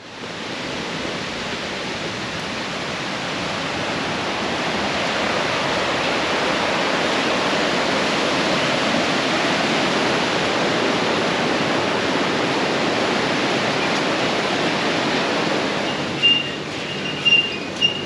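Steady rushing of water, like a stream or small waterfall, swelling over the first half and dropping off about sixteen seconds in. A few short, high chirps come through near the end.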